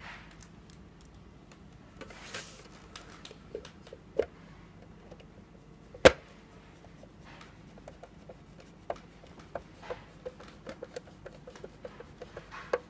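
Hand screwdriver driving screws into a black plastic fairing part, with light clicks and ticks from the screwdriver and the handled plastic. One sharp knock about six seconds in is the loudest sound, and the ticks come more often in the last few seconds.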